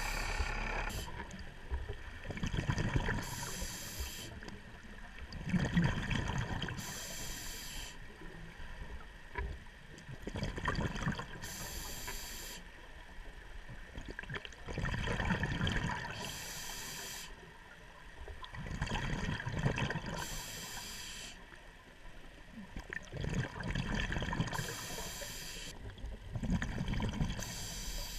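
Scuba diver breathing through a regulator underwater: rumbling bursts of exhaled bubbles alternate with hissing breaths in, one cycle about every four to five seconds.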